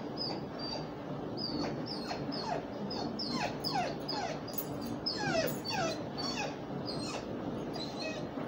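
A dog whining: a run of short, high-pitched whimpers, about two or three a second, many of them sliding down in pitch.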